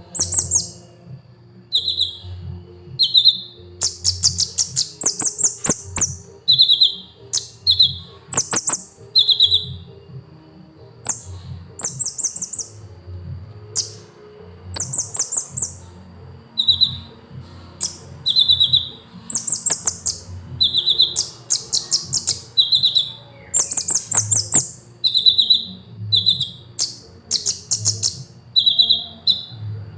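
Sunbird singing: short, high chirps and fast trills, one phrase about every second, with a few faint clicks among them.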